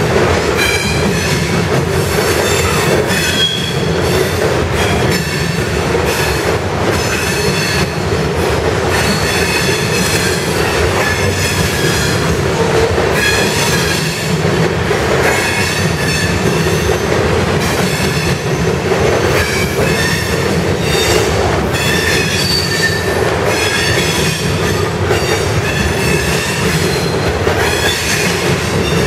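Covered grain hopper cars of a freight train rolling past: a steady rumble of steel wheels on rail, repeated clicks as wheels cross rail joints, and high-pitched squeals that come and go.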